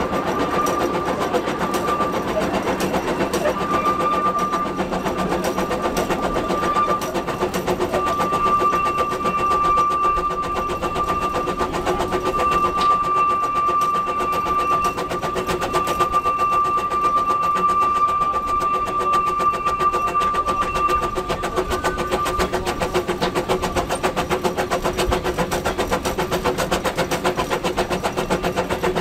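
Small narrow-gauge steam locomotive running along the track, heard from the footplate: a steady fast clatter of running gear and rails, with a steady high-pitched tone over it that drops out about two-thirds of the way through.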